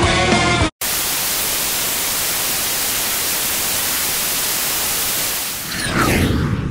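Music cuts off abruptly. After a split second of silence comes a steady white-noise hiss like TV static, used as an edited transition. Near the end the hiss fades under a sweeping, gliding sound.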